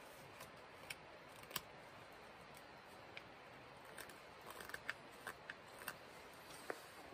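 Small hatchet blade shaving and slicing a dry pear-wood blank on a chopping block: scattered short, crisp cuts, a few single ones early and a quick run of them between about four and six seconds in.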